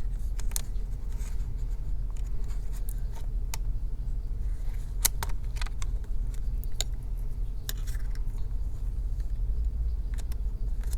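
Scattered small clicks and taps of laptop parts and a cable connector being handled during a DC jack replacement, over a steady low hum.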